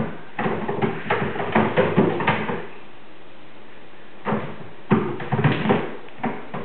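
Kittens' paws thudding and scrabbling on the roof as they chase a laser dot. The knocks come in two quick flurries, the second beginning about four seconds in.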